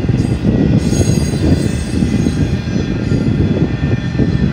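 Empty spine cars of a freight train rolling past, a steady loud rumble of wheels on rail, with faint thin high tones above it.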